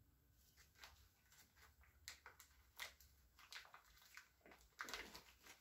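Near silence with faint scattered small clicks and a brief rustle about five seconds in: gloved hands handling and seating main bearing shells in the engine block's main saddles.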